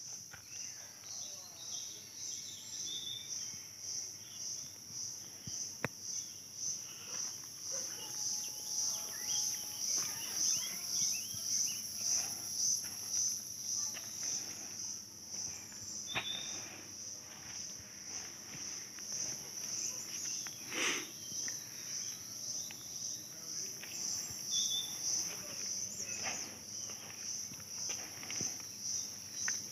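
A chorus of forest insects: a continuous high shrill that swells and fades a little more than once a second.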